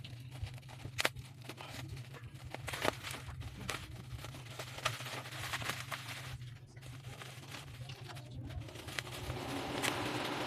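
Packaging being handled and torn open, with scattered sharp rustles, crinkles and clicks over a steady low hum.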